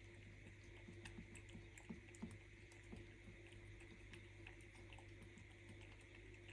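A cat eating, faint wet chewing and lapping ticks, several a second and irregular, over a faint steady hum.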